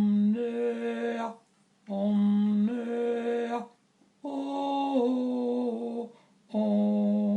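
Background music: a solo voice humming or chanting long held notes in four phrases, each with a short break between.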